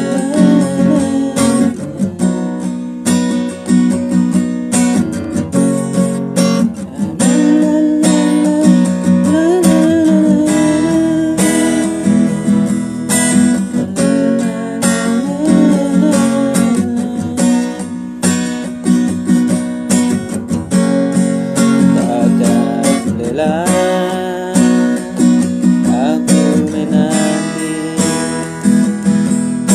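Acoustic guitar strummed steadily in a continuous rhythm, cycling through the chords B, E and A#m.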